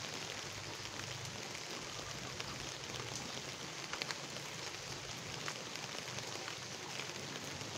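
Light rain falling on a puddle and wet ground: a steady even hiss, with a few sharper ticks.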